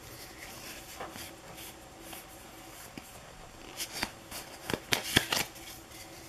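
Pokémon trading cards being handled by hand, spread and shuffled through to reorder them: soft rustling of card stock, with a cluster of sharper card snaps and flicks about four to five and a half seconds in.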